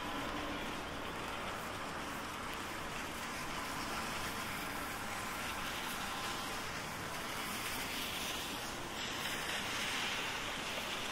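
Steady hiss of rain falling on an umbrella, mixed with tyre noise from traffic on a wet street. The hiss swells near the end.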